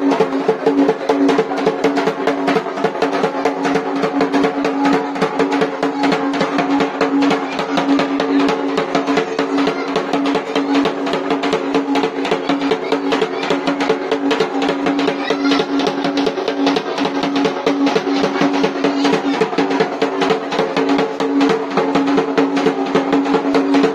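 Rapid, continuous drumming over a steady droning tone.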